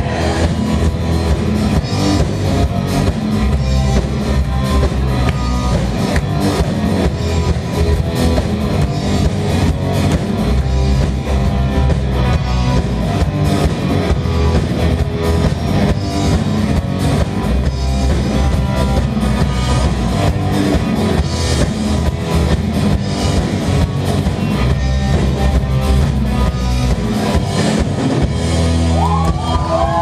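Live rock band playing loudly: drum kit keeping a steady beat under electric guitars. A wavering, sliding high note comes in near the end.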